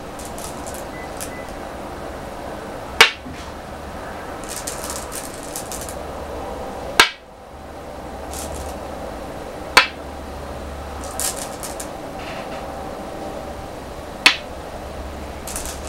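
Go stones snapped down one at a time onto a wooden go board, four sharp clicks a few seconds apart. Softer clatter of stones being picked from the bowl comes between them, over a steady low hum.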